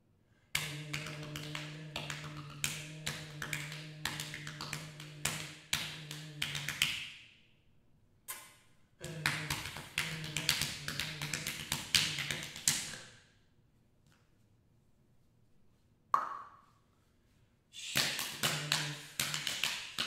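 Body percussion: fingers tapping rapidly on the cheeks and chest in three long runs, over a steady low hummed tone.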